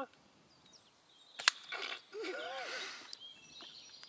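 One sharp crack about a second and a half in, typical of an airsoft BB striking a target, followed by a short vocal cry from the person being hit.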